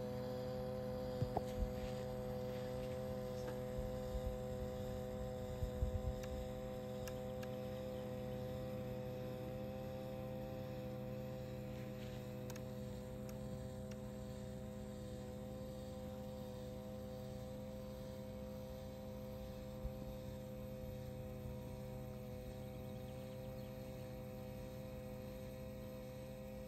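Radio-controlled model fireboat under way: a steady humming tone with several overtones, slowly getting quieter. A few short knocks come in the first six seconds.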